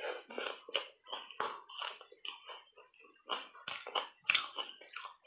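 Biting and chewing round ice coated in matcha powder: irregular crunches, with a quick run of louder crunches about two-thirds of the way through.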